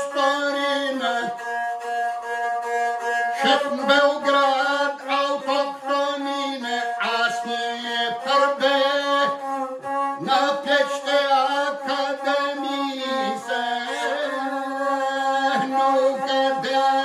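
A lahuta, the Albanian single-string bowed folk fiddle, played in long held notes that step between a few nearby pitches, with a man singing an epic song along with it.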